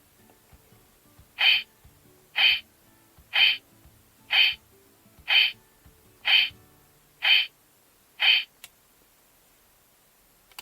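CSM Kamen Rider 1 Typhoon transformation belt sounding eight short electronic tones through its small speaker, evenly spaced about a second apart.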